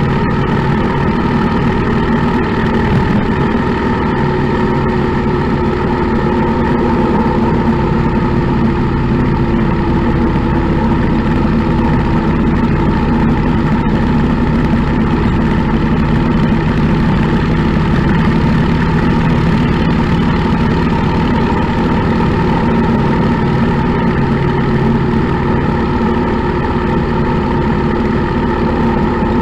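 Motorcycle engine running steadily at an even cruising speed, heard from on the bike while riding.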